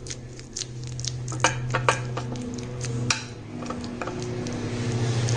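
Steel spoon pressing and scraping a sticky mixture of roasted makhana, coconut and dry fruits in sugar syrup into a ceramic dish, with scattered clicks of metal against the dish. A steady low hum runs underneath.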